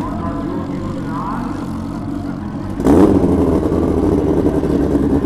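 Suzuki-bodied Pro Street drag bike's engine running at a low, steady idle, then about three seconds in it jumps abruptly to a loud, rough high-rev run that holds.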